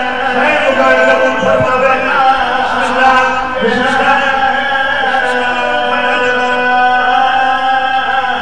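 Men's voices chanting an Urdu/Saraiki devotional qasida, unaccompanied, in long drawn-out sung notes through microphones.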